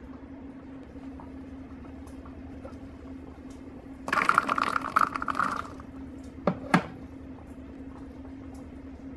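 Fresh blueberries poured into a plastic tub, rattling in for about a second and a half, followed by two sharp knocks, over a steady low hum.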